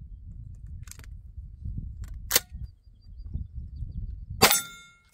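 A Beretta 1301 Tactical 12-gauge semi-automatic shotgun fires a single sharp shot near the end. Before it, a light click about a second in and a sharp metallic clack a little after two seconds come from loading a shell and closing the action. Wind rumbles on the microphone throughout.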